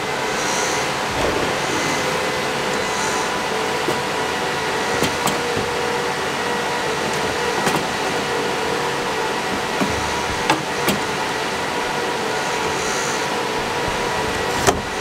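Steady whir of running fans with a few faint tones, broken by scattered knocks and clunks as a metal exhaust-fan housing is set into a windowsill, the sharpest knock near the end.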